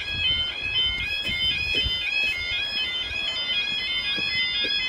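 Level crossing warning alarm sounding a steady two-tone warble, its pitch switching rapidly back and forth between a higher and a lower note, signalling that a train is approaching.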